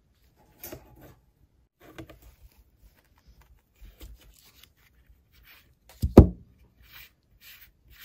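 The wide flat tip of a Ratnik 6E6 multitool working the adjustment turret cap of a red dot sight on a rifle: light scraping and small clicks, metal on metal. One heavier knock comes just after six seconds in.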